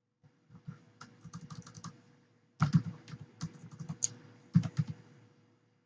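Typing on a computer keyboard: irregular runs of quick key clicks, with a few harder strokes about two and a half and four and a half seconds in.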